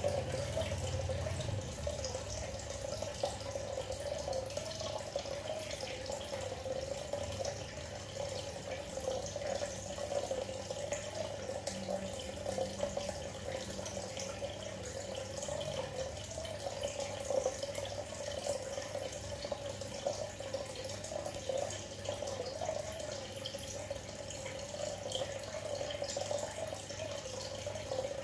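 Aquarium aeration bubbling steadily, with a trickle of water and a low steady hum underneath.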